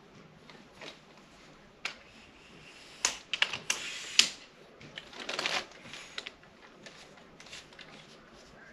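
Camera tripod being handled and adjusted: scattered clicks and clacks of its parts, with a burst of sharp clicks about three to four seconds in and a short sliding rasp a little after five seconds.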